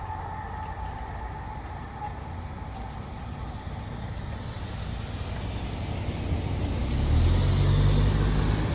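A small hatchback car drives up to the crossing and passes close by. Its engine and tyres grow louder over the last few seconds and are loudest near the end.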